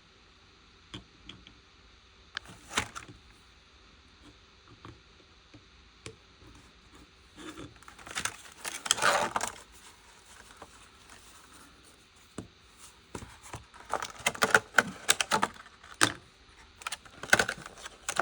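Stiff plastic packaging crinkling and crackling in several bursts as it is worked open, with scattered clicks and taps between.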